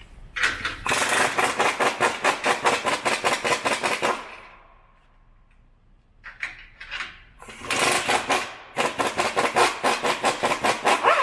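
Impact wrench hammering in two long bursts of about four seconds each, with a few short trigger blips between them, as it runs the nuts off a truck's sway bar bracket.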